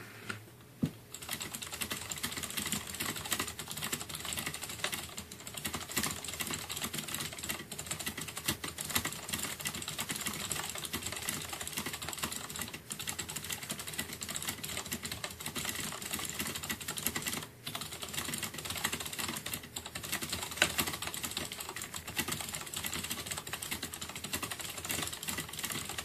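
Fast typing on a CM Storm Quickfire Rapid mechanical keyboard with Cherry MX Blue switches and PBT keycaps, each key fitted with a 1.5 mm rubber O-ring. It is a dense, continuous stream of keystrokes that starts about a second in, with a couple of short pauses. The O-rings damp the clack of keys bottoming out, so the typing is less noisy than on undamped Blue switches.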